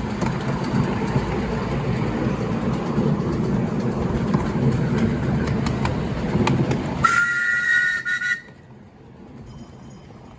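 Miniature railway train running with a steady low rumble and scattered clicks from the wheels on the track. About seven seconds in, a two-note horn sounds for just over a second, and then the running noise stops abruptly.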